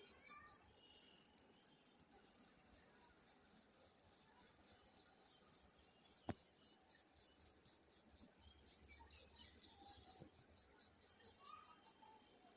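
Cricket calling: a loud, high-pitched pulsed chirping, about four to five pulses a second. It falters for a moment about a second in, then settles into a continuous trill near the end.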